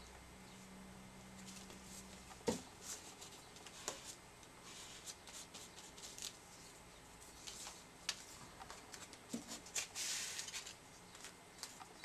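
Paper and card being handled and pressed down by hand: soft rustles and crinkles with a few sharp taps, and a longer paper rustle about ten seconds in.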